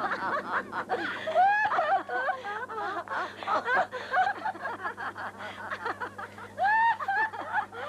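Women laughing and giggling in quick, high-pitched peals.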